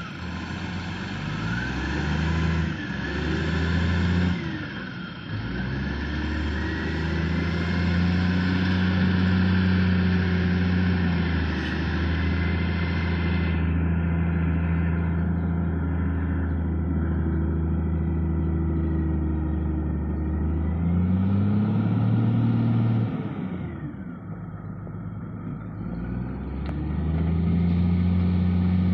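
Heavy diesel engine running under load, its pitch rising and falling several times as it is revved up and eased off.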